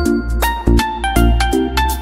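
Background music with a steady beat, about two strong low beats a second under sustained melodic notes.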